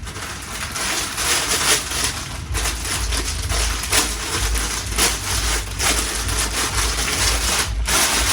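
Crinkling and rustling of a shopping bag or packaging being handled, with low bumps of handling on the microphone.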